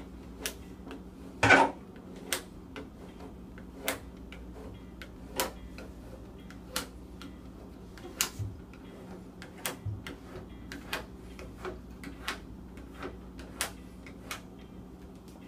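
Short, sharp ticks, about one every 0.7 seconds, with a louder knock about a second and a half in, over a steady low hum.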